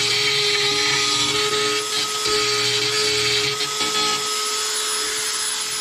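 Dremel rotary tool running at high speed with a steady whine, grinding a rubber grommet to enlarge it.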